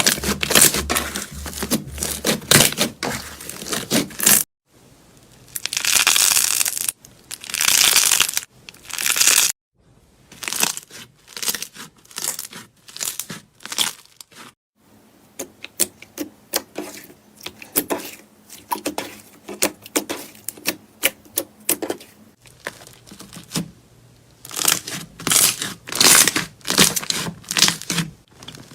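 Slime being squeezed, stretched and poked by hand, giving rapid crackling pops and sticky clicks, in several short segments that change abruptly.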